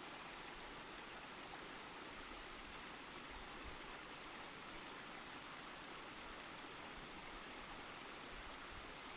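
Rushing water, a steady even hiss without pauses or distinct splashes.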